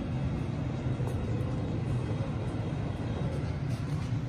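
Steady low hum and rumble of running machinery, with no distinct strikes or changes.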